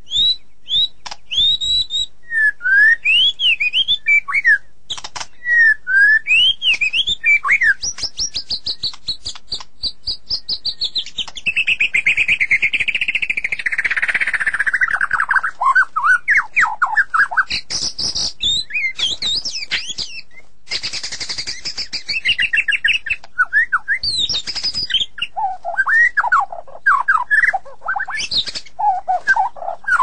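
White-rumped shama singing a long, varied song of clear whistled phrases that slur up and down, mixed with rapid clicking notes. In the middle comes a long warbled trill that falls in pitch.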